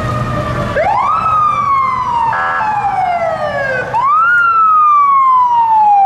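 Police siren on a passing parade police car, wound up twice. Each time it rises quickly, then slides slowly down in pitch. There is a short honk about halfway through.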